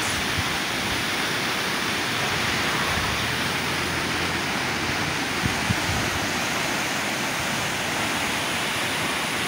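Muddy, swollen river rushing through rocky rapids: a steady, unbroken rush of white water.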